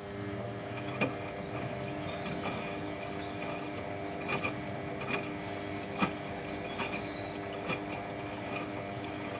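Samsung WF8602NGW washing machine running a cotton wash: its motor starts up and hums steadily with a faint high whine, and several light knocks and clicks come from the drum.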